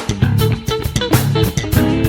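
Background music: an upbeat instrumental band track with guitar, bass and drum kit playing a steady beat.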